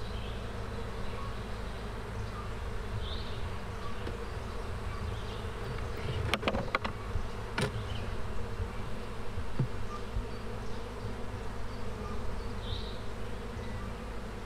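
Honey bees buzzing steadily around an opened hive and the comb frame lifted from it. A few sharp clicks come about six to eight seconds in.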